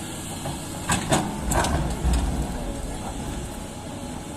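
JCB excavator's diesel engine running, with three sharp clanks about a second in and a deeper surge of engine sound around the two-second mark.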